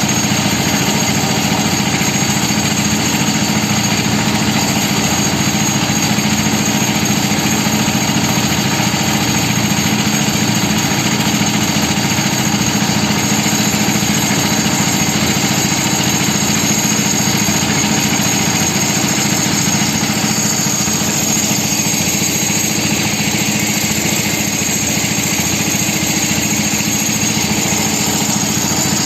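Concrete mixer's engine running steadily, a continuous even drone.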